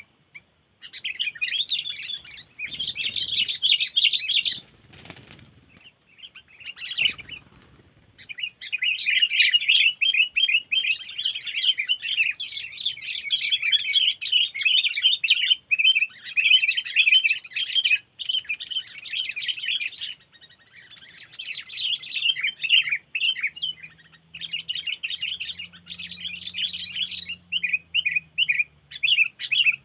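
Sooty-headed bulbul (kutilang) decoy bird calling in long runs of rapid, chattering chirps, with a break about five to eight seconds in where there is a brief low rustle or flutter.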